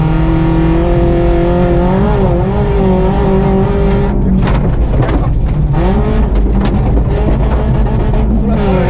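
BMW 318is four-cylinder engine heard from inside the cabin, held at high revs on a gravel rally stage. About four seconds in, the engine note breaks up under a burst of knocks and rattling for a second or two, then the revs climb steeply again. Near the end the revs drop sharply and rise once more.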